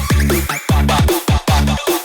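Electronic breakbeat dance music: heavy bass notes that drop in pitch, struck on a fast, regular beat about two to three times a second.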